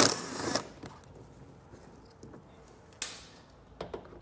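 Cordless driver with a T15 Torx bit backing out wheel-well liner screws: a half-second run at the start, the loudest sound, and another short, sharp one about three seconds in, with quiet between.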